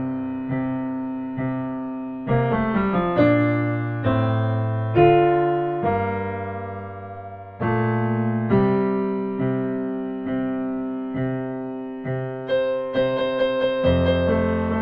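Piano playing slow chords, each struck and left to fade, with quick runs of notes about two seconds in and again near the end. No singing.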